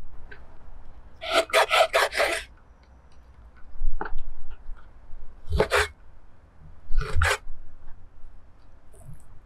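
Kitchen knife cutting raw beef on a wooden cutting board. A quick run of about five slicing strokes comes about a second and a half in, then a few single cuts; the later cuts end in a knock of the blade on the board.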